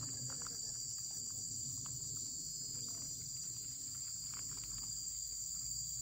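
Steady high-pitched chorus of forest insects: several shrill tones held without a break.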